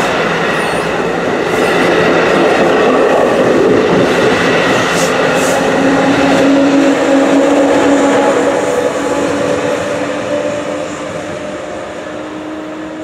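NJ Transit multilevel passenger train rushing past at speed, with wheels rolling and clattering over the rail joints. A steady hum sets in about halfway as the ALP-46 electric locomotive at the rear goes by. The sound then fades as the train pulls away.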